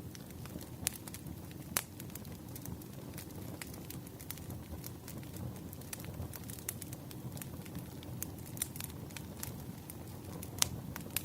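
Wood fire crackling: irregular sharp snaps and pops over a steady low rumble of burning logs, with the loudest pop near the end.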